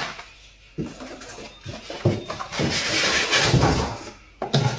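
Packing material of a boxed appliance being handled and pulled out: a sharp knock about a second in, then a couple of seconds of loud rustling and scraping.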